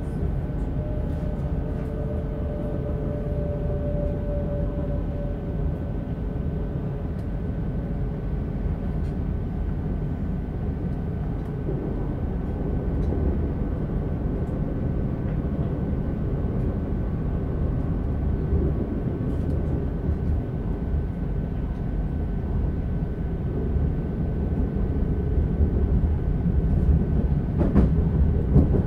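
Passenger train running, heard from inside the carriage: a steady low rumble of wheels on the track with a faint, steady high tone above it. A fainter whine sounds during the first several seconds, and the running gets louder in the last few seconds, with a few sharp clacks near the end.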